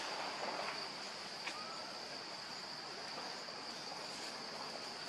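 Steady high-pitched drone of insects in forest, with a faint brief chirp about one and a half seconds in.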